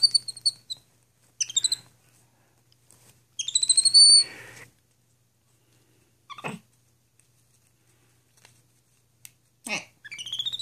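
Capuchin monkey giving high, squeaky chirping calls in short bouts, with a longer rising, pulsing trill about three and a half seconds in and more chirps near the end.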